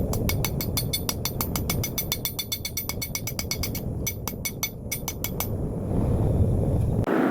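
Rapid, light hammer blows from a framer's hammer on hot 5160 steel over an anvil, about seven a second with a brief pause near four seconds in, straightening the drawn-out blade. A steady low roar underneath, typical of a gas forge burner, shifts abruptly near the end.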